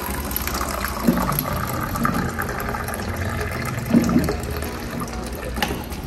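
Water running from a water dispenser's tap into a plastic cup, filling it, with a couple of soft knocks of the cup being handled.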